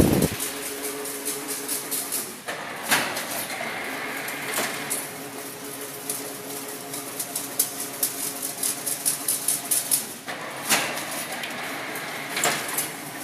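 Chain-link fence making machine running: a steady motor hum with rapid, continuous ticking and clattering of wire, and a few louder clanks about three seconds in and twice near the end.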